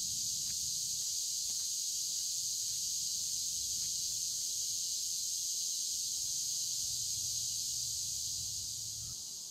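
Steady high-pitched insect chorus at dusk, with faint footsteps on asphalt about twice a second in the first few seconds; the chorus fades slightly near the end.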